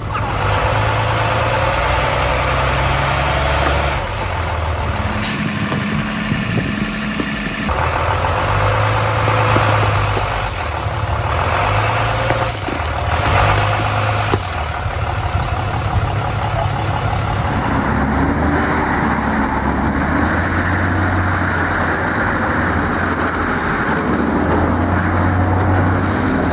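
Heavy vehicle engine running steadily. The sound changes abruptly several times.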